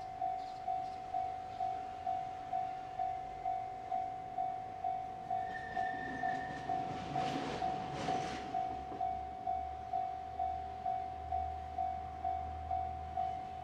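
Railway level-crossing warning bell ringing in a steady repeating ding, about two strikes a second. A brief high tone sounds near the middle, followed by a short rush of noise, and a low rumble builds over the last few seconds.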